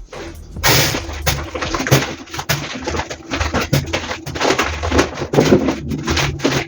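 Crinkly rustling and handling of a plastic grocery bag as potatoes are taken out, in many short crackles. A dove coos in the background.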